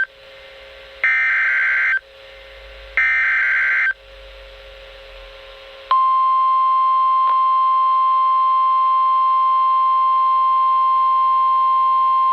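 Emergency Alert System SAME header on NOAA Weather Radio: two one-second bursts of warbling data tones a second apart, then, about six seconds in, the steady 1050 Hz weather radio warning alarm tone starts and holds, announcing an incoming warning broadcast.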